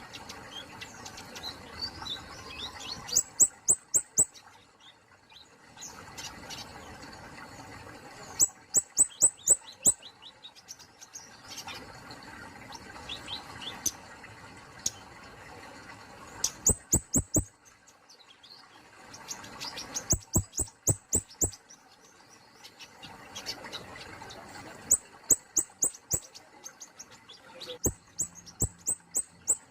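Kemade polos songbird singing: about six short phrases of rapid, sharp, high-pitched notes, each phrase a quick run of five to eight strokes, coming every few seconds, with softer twittering between the phrases.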